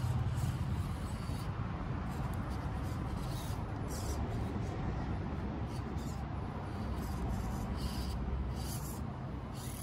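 Axial SCX24 micro rock crawler on its stock brushed motor creeping slowly over dirt and rocks. A steady low whir and hiss runs throughout, with a few short scratchy scrapes of the tyres on the ground.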